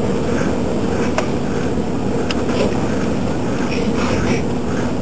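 Dive boat's engine running, a steady drone with a constant hum, over wind and water noise.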